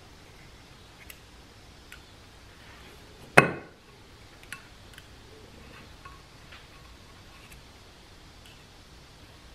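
Light clicks of a small steel pick tool against a transmission's forward clutch retainer, with one loud metallic clank about three and a half seconds in that rings briefly.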